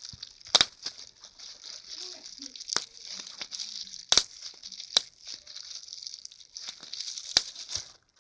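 Plastic bubble wrap being squeezed and crinkled, with a steady crackle broken by sharp pops of bubbles bursting: about five loud pops at irregular intervals, plus a few smaller ones.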